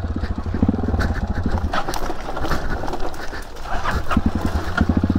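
Dirt bike engine chugging at low revs as it crawls along a rough trail, easing off through the middle and picking up again near the end.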